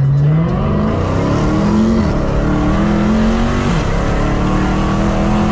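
Dodge muscle car engine under hard acceleration, heard inside the cabin: the revs climb steadily and drop twice as the automatic transmission shifts up, about two seconds in and again near the end.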